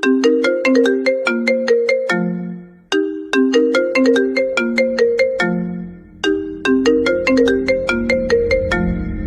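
iPhone ringtone playing: a short melody of quick, struck mallet-like notes that repeats about every three seconds, each phrase dying away before the next. A low hum builds beneath the notes near the end.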